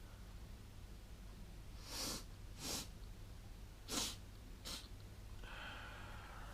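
A person sharply sniffing a pinch of nasal snuff up the nose: four quick sniffs in two pairs, about two seconds and four seconds in.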